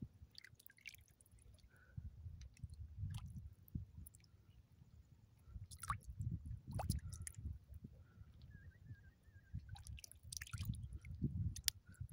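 Faint sloshing and squelching of shallow seawater around a wader's feet, coming in uneven surges, with scattered sharp drips and clicks.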